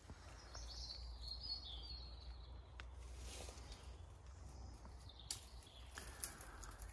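Quiet woodland ambience. A songbird sings a short, high, wavering phrase about a second in, over a steady low rumble and a few faint clicks.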